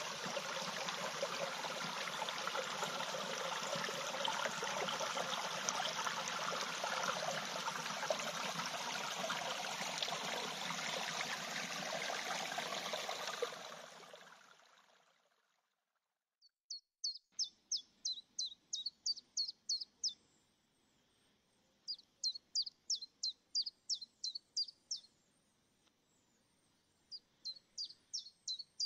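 A small woodland stream running, a steady rush of water that fades out about halfway through. After a short silence a common chiffchaff sings three phrases, each a quick run of about a dozen high repeated notes lasting around three seconds.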